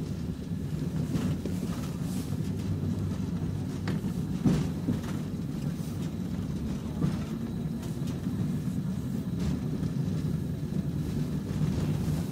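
Inside a moving tram: a steady low rumble of the car running, with a few sharp knocks, the loudest about four and a half seconds in.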